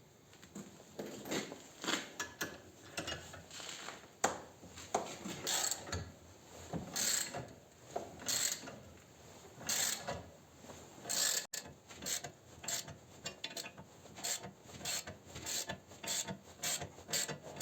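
Homemade puller's bolt being turned with a wrench against a seized engine pulley: metal scraping and clicking strokes about every second and a half, coming quicker in the last few seconds as the pulley starts to move.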